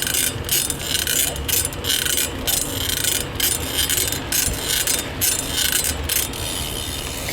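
BMX rear hub ratcheting as the bike coasts, a rapid buzzing click that comes in repeated short bursts and dies away near the end.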